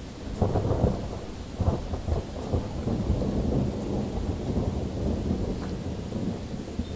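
Thunder breaking about half a second in with a few sharp claps, then a long low rolling rumble, over steady rain.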